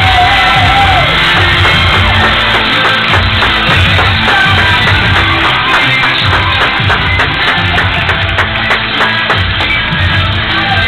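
Loud hip-hop backing beat playing, with people shouting over it.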